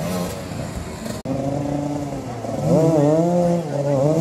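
Motoball motorcycle engines running, with an abrupt break about a second in. From about two and a half seconds in, an engine revs up and down.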